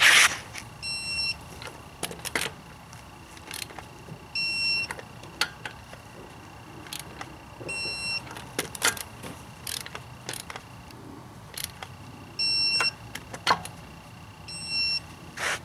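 Digital torque wrench beeping as each wheel lug bolt reaches the 140 newton-metre setting: five short beeps a few seconds apart. Between them come metal clicks and clacks of the socket and wrench on the bolts, the loudest right at the start.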